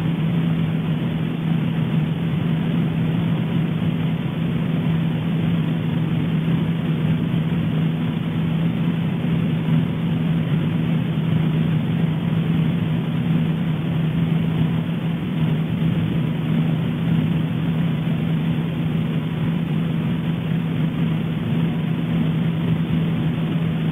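A steady, unchanging low drone: a constant hum with an even rushing noise beneath it.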